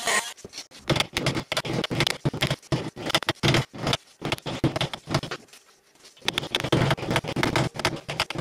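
Thin round file rasping back and forth across a wooden hammer handle made from old parquet, about three strokes a second, with a short pause a little over halfway.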